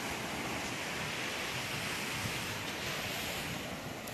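Small waves breaking and washing up a sandy beach: a steady surf noise.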